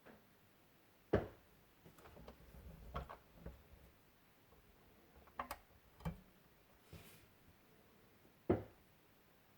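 Scattered clicks and knocks from handling a 1:18 diecast model car and its plastic packaging, with sharper knocks about a second in and near the end.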